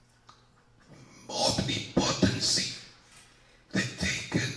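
A man lecturing into a close handheld microphone, with breathy, popping speech. There is a pause at the start and another brief one about three seconds in.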